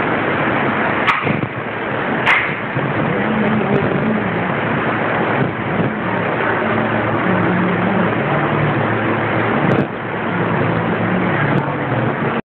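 Electric fans and air coolers of a mist cooling setup running: a loud, steady rushing noise, with a few sharp clicks about one and two seconds in and again near the end.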